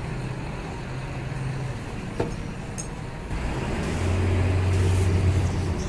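A motor vehicle's engine running, a steady low rumble that grows louder and deeper about three seconds in.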